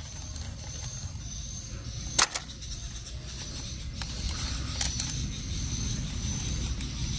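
Plastic toy train track pieces knocking and clicking together as they are picked up and handled: a few sharp clicks, the loudest about two seconds in, over a low steady rumble.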